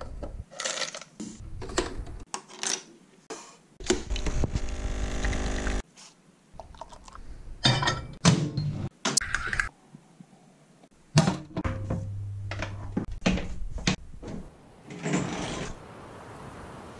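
A run of short household handling sounds: coffee capsules clattering in a plastic box, then knocks and clicks as a cup goes into a microwave. A machine hums steadily for about two seconds early in the run, and a low hum comes back later.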